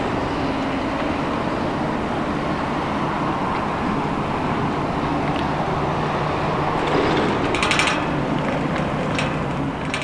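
Diesel engine and hydraulics of a Hitachi Zaxis 870 long-reach excavator running steadily as the boom and arm are raised, with a short metallic rattle about three-quarters of the way through and a couple of clicks near the end.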